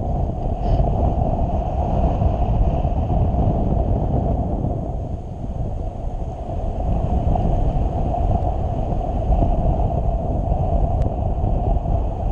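Wind rushing over the microphone of a paraglider pilot's camera in flight: a loud, steady, fluttering rumble of airflow.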